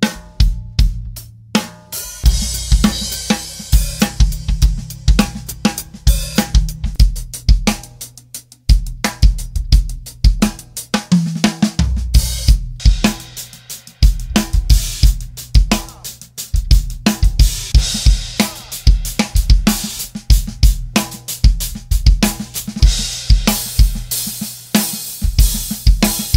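Drum kit playing a groove, with kick, snare and hi-hat strokes, over a bass line from a backing track.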